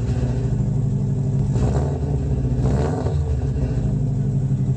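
A car engine idling at the exhaust just after starting, with a low pulsing note, revved briefly twice near the middle.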